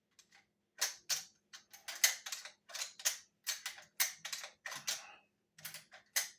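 A Marlin 30W lever-action .30-30 rifle's mechanism being worked by hand: a run of sharp metal clicks and clacks, often in pairs, about two a second. The safety and action are freshly oiled and moving easily.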